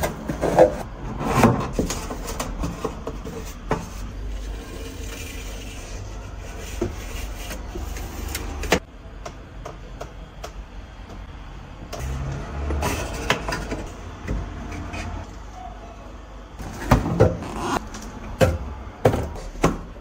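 Refrigerator door shelves being handled: scattered knocks and clacks of plastic as a clear door bin is set in place and bottles and a carton are put into it, over a low steady rumble.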